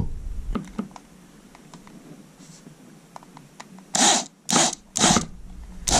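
Corded power drill driving a screw into a flat-pack bookcase panel in four short bursts, starting about four seconds in, after a few faint clicks of handling.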